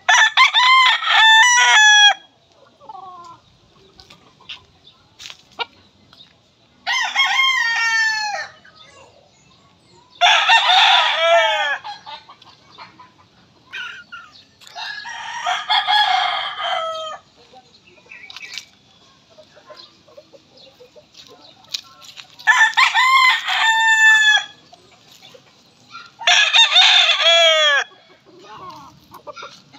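Roosters crowing, six crows of about two seconds each, spaced several seconds apart.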